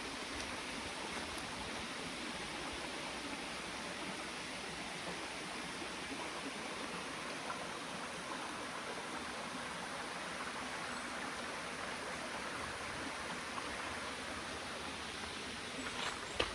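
Mountain stream flowing steadily, an even rushing of water. A few footsteps come in near the end.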